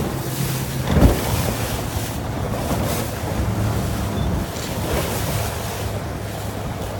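Wind buffeting the microphone over water rushing and splashing against a boat hull on open water, with a steady low hum underneath. There is a louder thump about a second in, like a wave slapping the hull.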